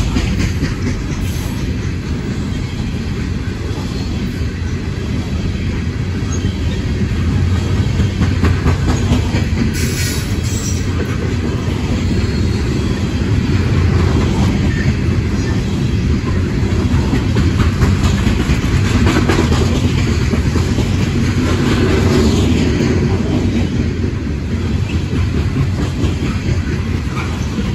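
A train of empty rotary-end hopper cars rolling past close by: a steady rumble of wheels on rail, with rapid clicking as the wheels cross rail joints.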